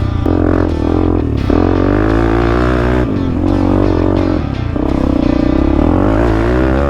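Background music with a bass line, mixed with an off-road vehicle's engine revving up and down.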